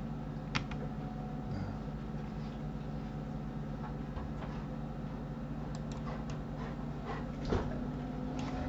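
A few sharp computer mouse and keyboard clicks, scattered and sparse, with a small cluster around six seconds in and a louder click near the end, over a steady low electrical hum and hiss.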